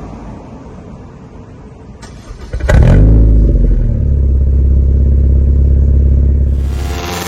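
Honda Civic FC 1.8 four-cylinder engine and exhaust: a low rumble, then about two and a half seconds in a sudden rev that rises in pitch and is held at a steady, loud low drone for about three seconds before easing off near the end.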